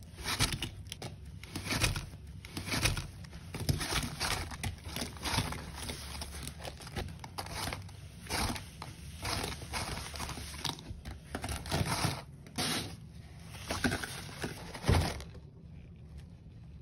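Gritty green cleaning powder crunching and scraping against cardboard inside a cardboard box as a gloved hand works it, in irregular crunchy strokes. The crunching stops about a second and a half before the end.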